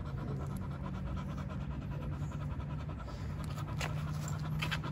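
Chow chow panting rapidly with its mouth open, in quick even breaths, over a steady low hum.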